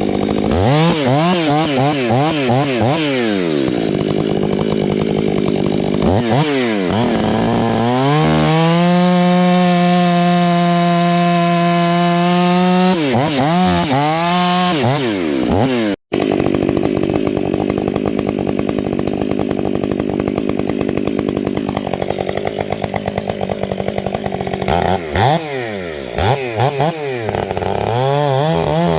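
Stihl 500i two-stroke chainsaw with an 8-pin sprocket cutting firewood: it revs up and down rapidly several times, holds at high revs for several seconds, then revs repeatedly again near the end. The sound cuts out for an instant about 16 seconds in.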